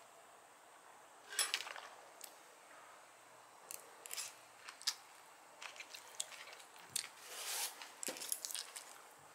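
Irregular light clicks, taps and short rustles from small objects being handled, the loudest cluster about a second and a half in and more frequent in the second half.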